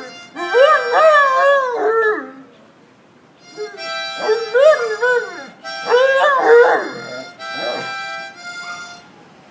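Harmonica played in short phrases while a Great Dane howls along, its howls rising and falling in pitch. It comes in two spells with a pause of about a second near the middle.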